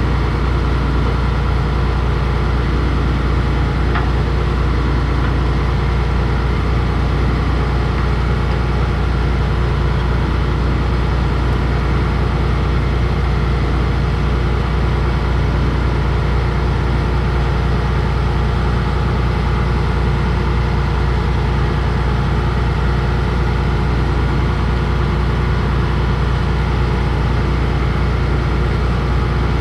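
Combine's diesel engine idling steadily at a constant speed, a low even hum with no change in pitch.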